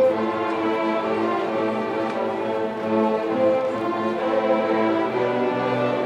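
Student string orchestra of violins, violas and cellos playing held, bowed notes together at an even loudness.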